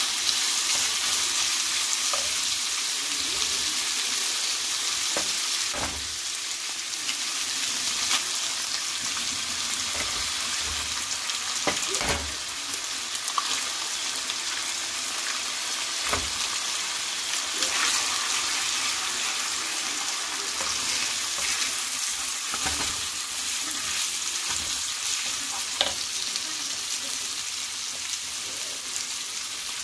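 Sliced hot dogs and bologna frying in a nonstick skillet: a steady sizzle, stirred with a wooden spoon, with occasional knocks of the spoon against the pan.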